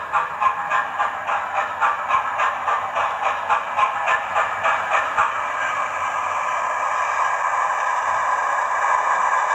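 Hornby A4 model locomotive's TTS digital sound decoder playing steam-locomotive chuffs through its onboard speaker in a quick, even rhythm. About halfway through, the chuffs merge into a steady hiss as the model draws up to a stop.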